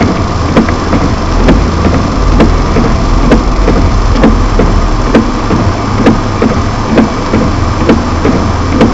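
Car engine idling in stopped traffic, heard from inside the cabin through a dashcam microphone: a steady hum and noise, with a short click or knock about once a second.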